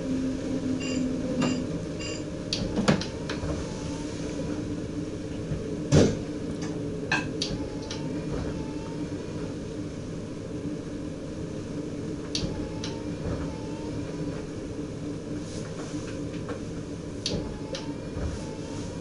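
DM'90 diesel multiple unit under way, heard inside the driver's cab: a steady running hum with a low drone, broken by scattered sharp clicks and knocks, the loudest about six seconds in.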